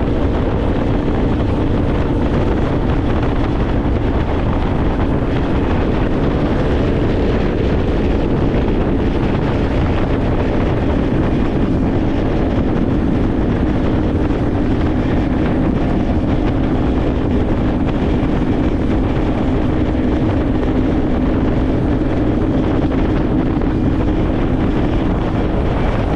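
An engine running steadily with wind noise on the microphone, cutting off abruptly at the end.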